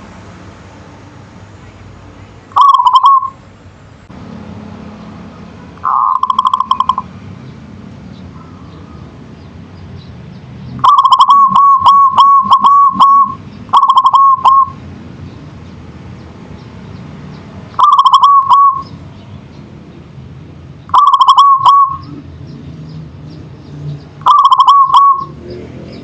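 A zebra dove (perkutut) cooing: seven short phrases of quick rippling notes, one every few seconds, with one longer run about eleven seconds in.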